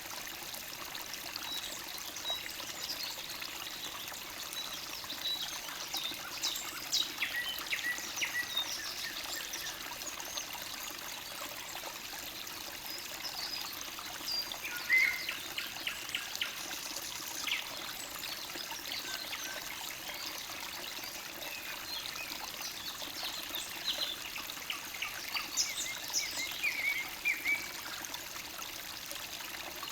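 Forest stream trickling steadily, with songbirds chirping and trilling over it in scattered phrases, busiest around the middle and near the end.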